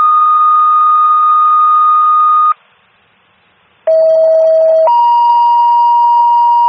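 Fire dispatch two-tone sequential paging tones over a scanner radio, alerting fire companies to a call. A steady high tone stops about two and a half seconds in. After a short pause a lower tone sounds for about a second, then steps up to a second steady tone that holds to the end.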